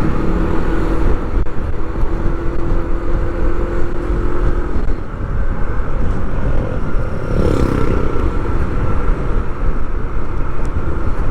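Steady motor-vehicle and road traffic noise: engines running with a continuous low rumble, and a brief rise and fall in pitch about seven seconds in.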